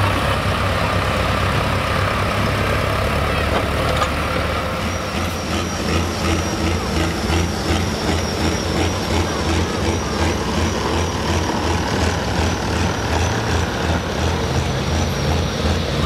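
Diesel pickup truck engine idling with a steady, rhythmic low throb; a thin high whine rides over it from about five seconds in.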